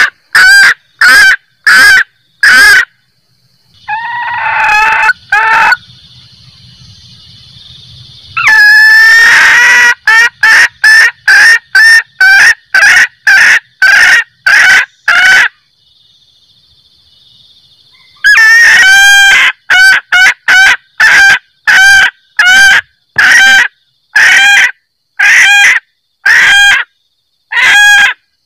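Hen junglefowl cackling, a loud 'kek-kek' call used as a lure to draw in males. It gives rapid trains of short, sharp notes at about two a second, in bouts broken by short pauses, and some bouts open with a longer drawn-out call.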